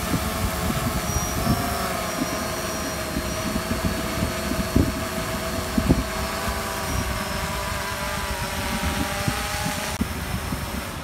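Quadcopter drone's propellers running in flight as it climbs away lifting a baited fishing line: a steady hum of several tones with a faint high whine above it, wavering slightly in pitch about a second and a half in. A few low thumps, the loudest about five and six seconds in, come and go underneath.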